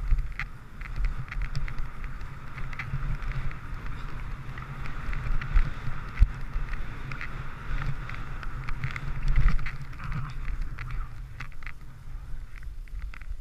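Skis running over chopped-up, tracked snow: a steady hiss with scattered scrapes and knocks, over the low rumble of wind buffeting the GoPro camera.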